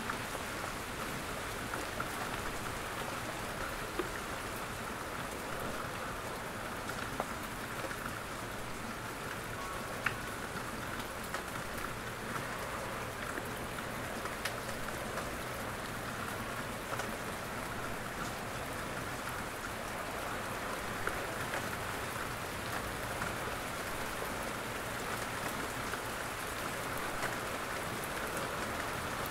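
Steady rain-like hiss with scattered faint ticks like drops, as from an ambient rain recording.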